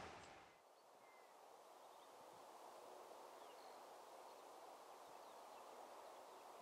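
Train noise fades out in the first half second, leaving near silence: faint outdoor hiss with a few brief, faint bird chirps.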